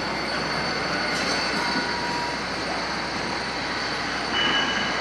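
Steady mechanical noise with two brief high squeals, the second and louder one near the end.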